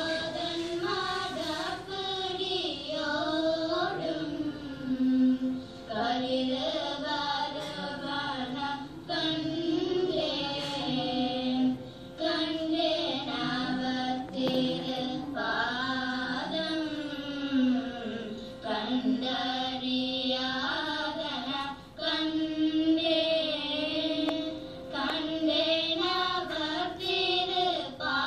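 A girl singing a Tamil devotional hymn solo in Carnatic style, in long melodic phrases over a steady drone note.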